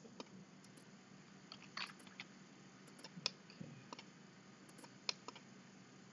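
Scattered, irregular clicks of a computer mouse and keyboard, about a dozen over several seconds, over a faint steady electrical hum.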